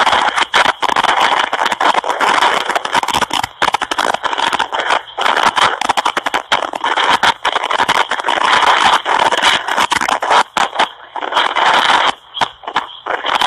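Loud crackling, scraping noise on a telephone call, breaking up in frequent short dropouts.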